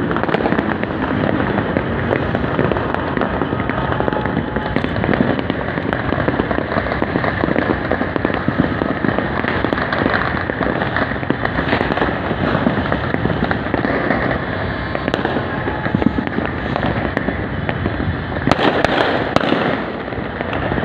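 Countless firecrackers and aerial fireworks going off all at once across a city, merging into a continuous crackling, popping din, with a louder flurry of cracks near the end.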